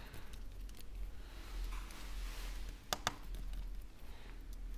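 Quiet handling noises of small repair tools working on an opened iPhone 12, with two sharp clicks in quick succession about three seconds in.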